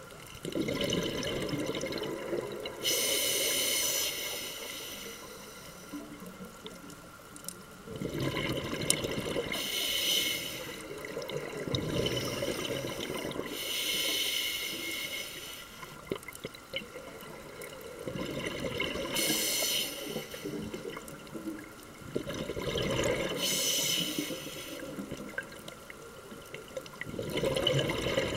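Scuba diver breathing through a regulator underwater: a few seconds of exhaled bubbles, then a short hiss of inhalation, repeating about five times at four- to six-second intervals.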